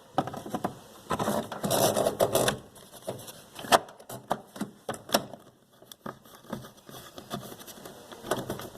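Irregular clicks, taps and short scrapes of a screw and screwdriver being worked against chrome door trim, trying to get the screw to start in its hole.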